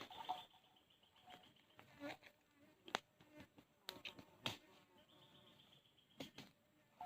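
Faint high-pitched insect trill, heard at the start and again about five seconds in, with scattered sharp clicks and knocks.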